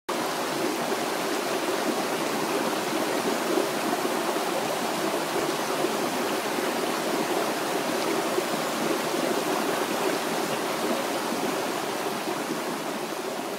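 Steady rush of running water, fading out near the end.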